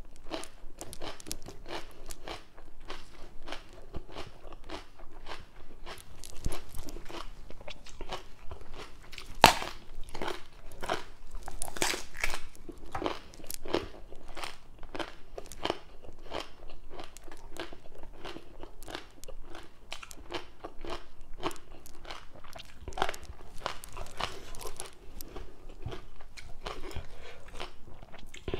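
A person chewing crunchy food, papaya salad and raw vegetables, with a steady run of crisp crunches and one sharp, loudest crunch about nine seconds in.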